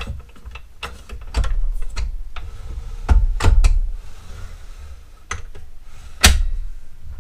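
Knocks and clicks of a sliding compound miter saw being handled and moved, its plastic and metal parts bumping, with a low rumble under them. About eight separate knocks, the sharpest one about six seconds in.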